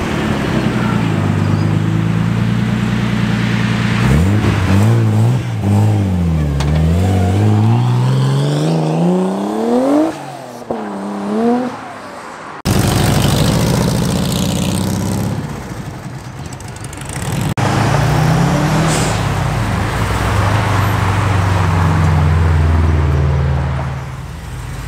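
Nissan Skyline R33's straight-six engine running at low revs as it rolls by, then accelerating away: the revs climb from about four seconds in, dip at a gear change, climb again to a peak and drop off. After an abrupt cut, another car engine runs steadily with a brief rise in revs.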